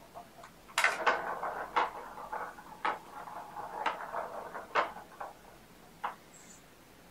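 Kitten batting a plastic ball around a circular ball-track cat toy: the ball rattles as it rolls round the plastic track, with a series of sharp clacks as it is struck. The rattling thins out after about five seconds, leaving a few single clicks.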